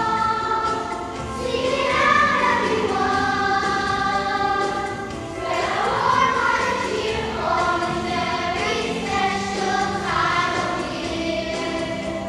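A choir singing a Christmas song with musical accompaniment, in long held and gliding notes.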